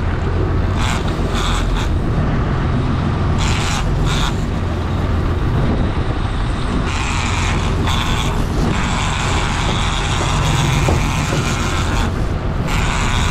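Boat engine running steadily, with several short bursts of hissing noise over it.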